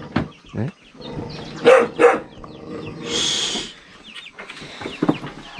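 A small puppy barks twice in quick succession about two seconds in, over faint peeping from young chickens in a plastic crate. A short rustling burst follows about a second later.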